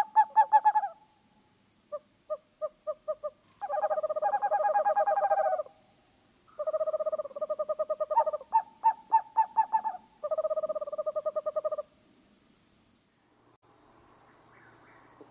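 Owl hooting: quick series of hoots in several bouts separated by short pauses. A faint hiss and a thin, steady high tone come in near the end.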